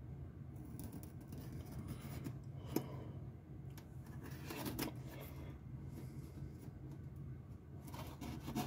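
Craft knife cutting and scraping at the plastic shrink-wrap on a cardboard model kit box, with faint crinkling, rubbing and scratching and a sharp click a little under three seconds in.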